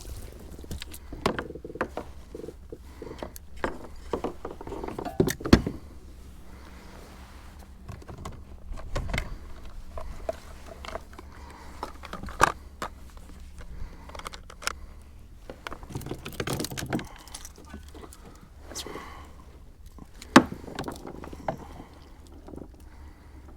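Scattered clicks, knocks and light rattles of fishing gear and a fish being handled, with two sharper knocks about five seconds in and near the end, over a steady low rumble.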